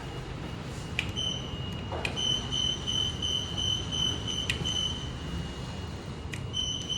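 Elevator car buzzer beeping in rapid high-pitched pulses, set off just after sharp clicks of a button being pressed, over the low hum of the running lift. The door close button is being pressed without closing the doors.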